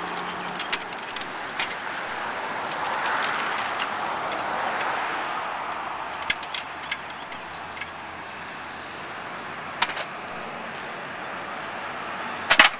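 Steady road traffic noise with scattered clicks and knocks of metal gear being handled, and a louder double knock near the end as a wooden ramp plank is set into a minivan's cargo floor.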